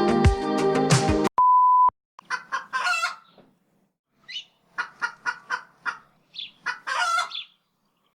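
The backing music cuts off, and a steady high beep sounds for about half a second. Then come several groups of short, quick chicken clucks, each group separated by dead silence.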